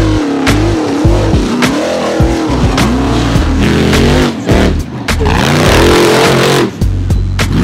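Rock bouncer buggy engine revving hard, its pitch swinging up and down as it climbs, mixed under a music track with a steady drum beat about twice a second.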